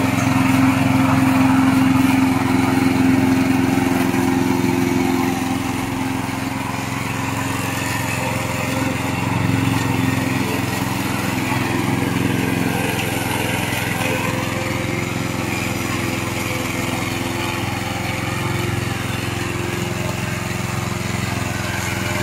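Gasoline engine of a tracked remote-control lawn mower running steadily under load. The engine is a little louder in the first few seconds, then holds at an even level.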